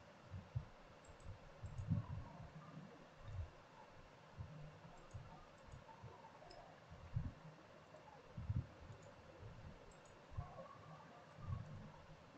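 Faint, irregular clicks and soft taps of a computer mouse and keyboard, unevenly spaced.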